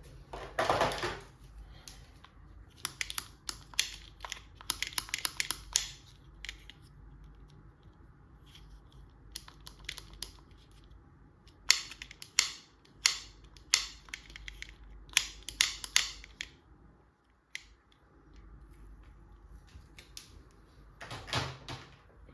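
Plastic doll-set pieces and packaging being handled: short rustles and sharp plastic clicks in irregular runs, the sharpest clicks coming in a string in the middle.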